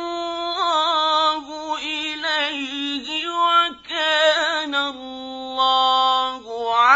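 A male Quran reciter's solo voice chanting in the ornamented mujawwad style, drawing out the syllables of the verse. It holds long notes and adds quick wavering ornaments, ending with a long held low note and an upward slide.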